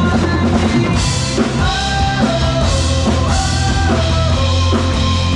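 Live rock band playing: drum kit keeping a steady beat under guitar and held melody notes.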